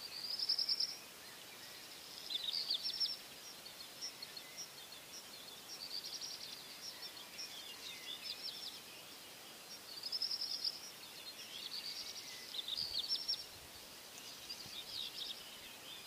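Songbirds singing in the dawn chorus: short, high chirping phrases and quick trills, one every second or two, over a faint steady background hiss.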